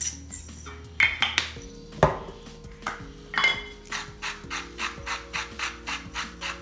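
Hand-twisted salt and pepper mill grinding over the meat in short crackly turns, about four or five a second. One sharp knock about two seconds in is the loudest sound. After a short pause the grinding starts again.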